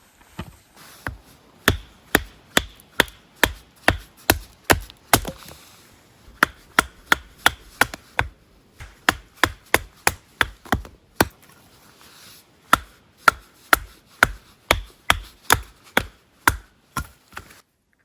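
Wood being chopped with a blade: sharp, regular strikes at about two to three a second, in four runs with short pauses between them. Saplings are being cut up for campfire wood.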